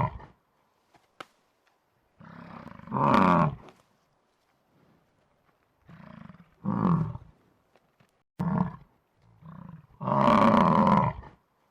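Lion roaring in a series of loud calls a few seconds apart, each falling in pitch and some led in by a quieter moan, with one short call between the longer ones.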